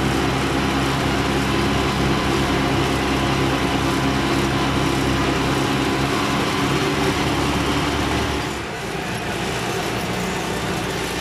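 IMT 577 tractor's diesel engine running steadily under way. About eight and a half seconds in it eases off, with a slight drop in level and a change in its low note, then runs on evenly.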